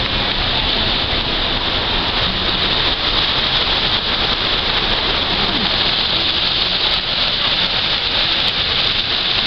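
Fountain water falling in streams from a ledge and splashing into a pool: a loud, steady rushing splash with no break.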